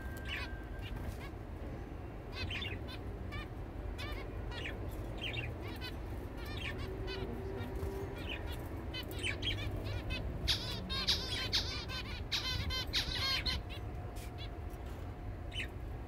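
Caged zebra finches calling: many short chirps scattered throughout, coming thick and fast for a few seconds past the middle.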